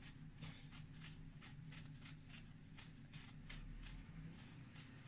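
Faint crisp rustling and light clicks, about four a second, as strips of apple peel are handled on a paper towel, over a steady low hum.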